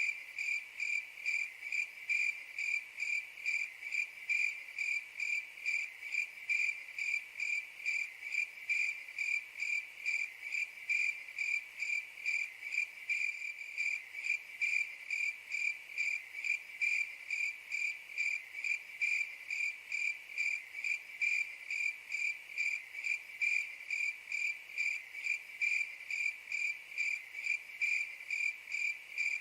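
A cricket chirping in a steady, even rhythm, about two to three chirps a second.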